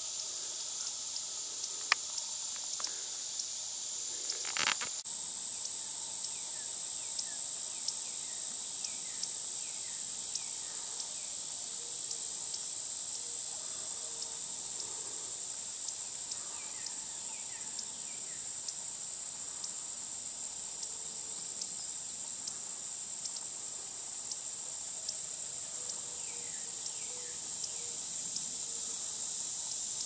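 Steady chorus of insects, a continuous high-pitched drone, with a sharp click about two seconds in and a knock near five seconds, after which the drone sits slightly higher. Faint short falling chirps come through now and then.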